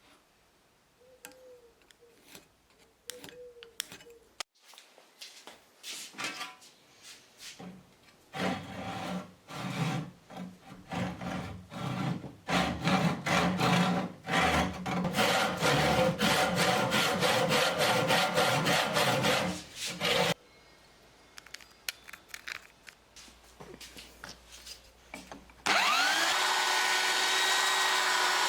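Hand-tool work on the workpiece: light clicks and handling, then a long run of fast back-and-forth scraping strokes. Near the end an electric power tool's motor starts, rising briefly in pitch as it spins up, then runs steadily.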